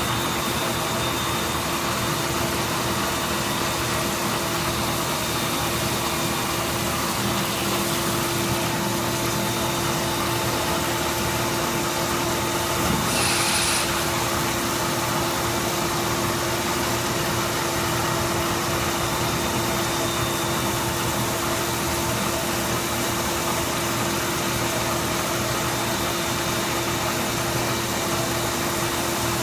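CNC machine running with a steady mechanical hum and one constant tone. A brief higher-pitched hiss comes about 13 seconds in.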